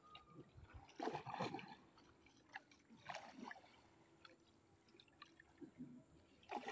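Faint splashes and drips of a wooden canoe paddle dipping into still floodwater, a few uneven strokes a couple of seconds apart.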